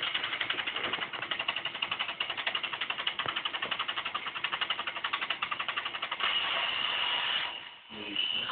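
Lego robot's motors and gear train running, with fast, even clicking. About six seconds in the clicking gives way to a steadier whir, which drops away briefly near the end.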